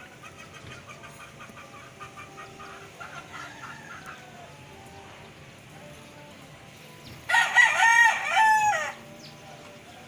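A rooster crowing once, loud, about a second and a half long, a little past the middle. Before it, fainter rapid chirping.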